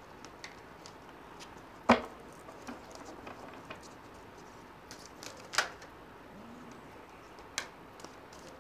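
A deck of cards being shuffled by hand: soft light clicking and flicking of cards, with three sharper clicks about two, five and a half and seven and a half seconds in.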